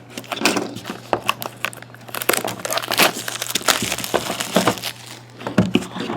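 Trading-card packaging crinkling and rustling with many irregular sharp clicks as it is opened and handled, over a steady low hum.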